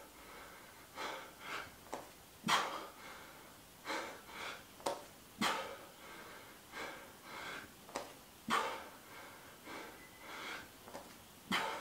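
A man's heavy breathing while doing slow push-ups: a forceful exhale about every three seconds, one per repetition, each just after a brief click, with quicker, softer breaths in between.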